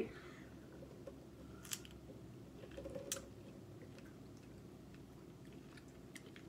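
Faint chewing of fresh fruit, a grape dipped in Nutella and a strawberry, with a few sharp wet mouth clicks, the clearest about a second and a half in and about three seconds in.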